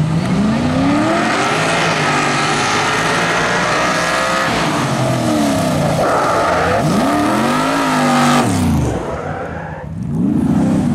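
Motorized firematic race cart's engine revving hard, its pitch climbing and dropping again and again as it accelerates and shifts. About eight and a half seconds in, the pitch sweeps down sharply as it comes off the throttle.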